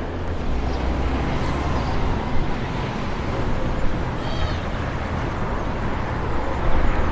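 Town street ambience: a steady wash of traffic rumble and general outdoor noise, with a short, high-pitched animal call about four seconds in.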